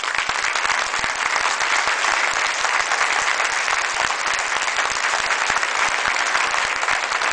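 Crowd applauding: many hands clapping at once at a steady level.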